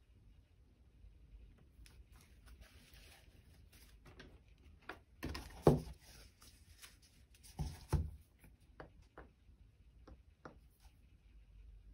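A square of stiff painted card being handled on a cutting mat: a light rustle as it is gripped, then two soft thumps about two seconds apart as it is picked up, turned round and put back down, followed by a few light taps.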